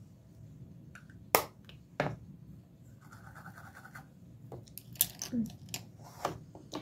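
Makeup items being handled close to the microphone: two sharp clicks, the first the loudest, then a brief scratchy brushing about three seconds in, then a quick string of lighter clicks and taps.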